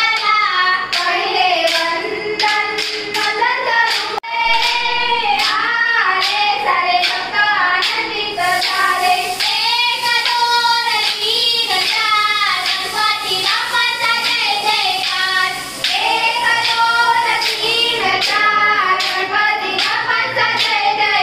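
Girls' voices singing a folk song together, with short wooden dance sticks clacking against each other in a steady rhythm.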